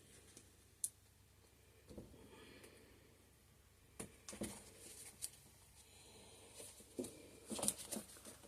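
Quiet handling of a soap mold and loaf: scattered light taps and clicks with soft rubbing, the busiest cluster near the end.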